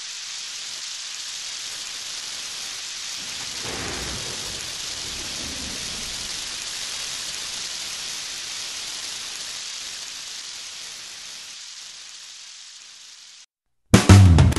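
Steady rain with a low roll of thunder about four seconds in. The rain fades out near the end, there is a brief silence, and then guitar music starts abruptly.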